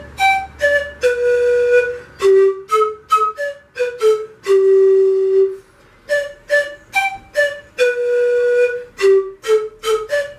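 Bamboo siku (Andean panpipes) playing a short melody of separate, breathy-attacked notes, the phrase ending on a long held low note about halfway through and then played again.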